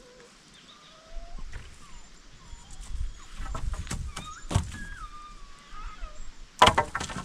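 Short, thin whistled animal calls scattered through, with knocks and rustling and a loud clatter near the end.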